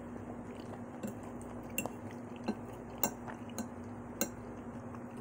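Eating utensil clinking lightly against a dish, about seven short separate clicks, over a faint steady hum.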